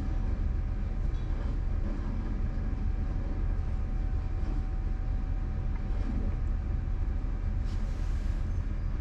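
A steady low mechanical rumble with a faint constant hum over it. About eight seconds in there is a brief rustle as a hand strokes the cat's head.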